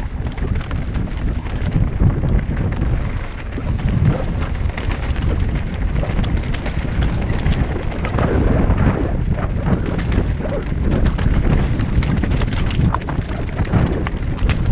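Mountain bike descending a loose, rocky trail: tyres crunching and clattering over the stones and the bike rattling without pause, over a steady low rumble of wind on the microphone.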